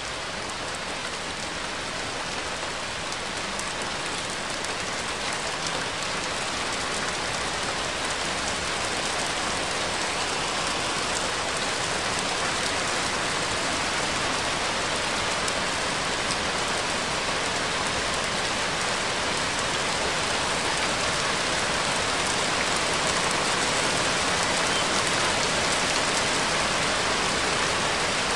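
Steady, dense rain sound, a rain ambience track that grows gradually louder.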